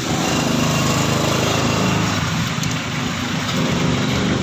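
A small engine running steadily, with a low, slightly wavering hum.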